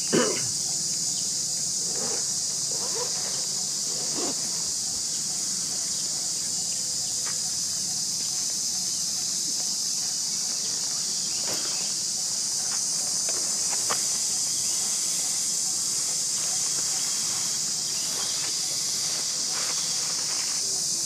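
A steady, high-pitched insect chorus fills the background without a break, with a few faint clicks and rustles scattered through it.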